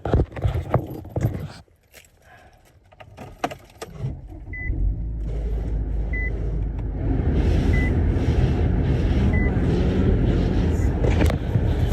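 Keys jangling and rustling, then a car engine starting up and running with a steady rumble. Over it a dashboard chime beeps four times, about a second and a half apart.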